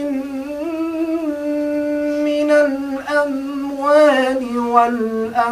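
A young man's solo voice reciting the Qur'an in melodic tajwid style, drawing out long held notes with slow ornamented turns. The pitch steps lower in the second half, with brief breaths between phrases.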